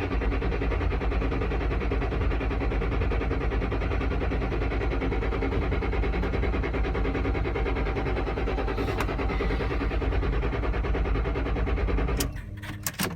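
2007 Ford Mustang Shelby GT-H's starter cranking its 4.6-litre V8 steadily for about twelve seconds without the engine catching, then stopping suddenly, followed by a few sharp clicks. A hard start, which the owner gets at random, usually on cold mornings or nights.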